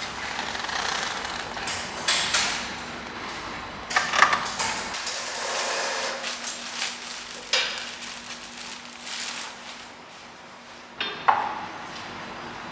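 Metal tools and parts clinking and knocking during car suspension work, with sharp clanks about two, four and eleven seconds in, over a faint steady hum.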